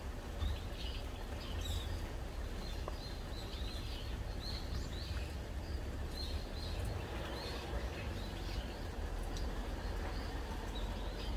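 Steady hiss of light rain over a low rumble, with a bird giving short chirps two or three times a second that thin out in the second half.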